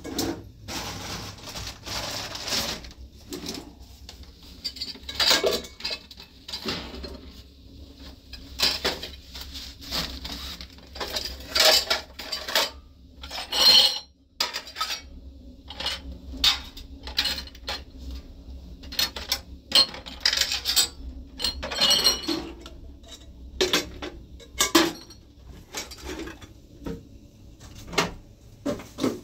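Metal pots, a kettle and plates, along with plastic jugs and bowls, being handled, knocked together and set down: an irregular run of short clanks and knocks.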